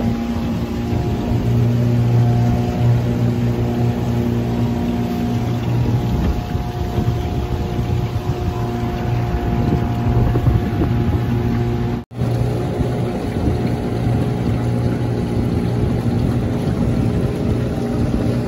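Outboard motor of a small fishing boat running at a steady cruising speed, a constant low hum with water and wind noise under it. The sound breaks off for an instant about twelve seconds in and carries on unchanged.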